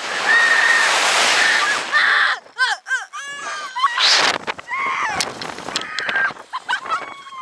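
Two girls screaming on a slingshot amusement ride as it launches them, with rushing wind buffeting the microphone for the first couple of seconds. This is followed by a quick run of short, high rising-and-falling shrieks and then longer wavering wails.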